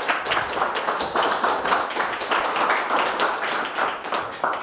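Small audience applauding, dying away near the end.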